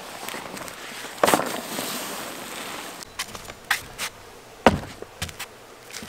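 Several irregular sharp knocks and clacks from camping gear being handled during camp setup, the loudest about a second in, followed by a brief rustle and a few lighter clicks.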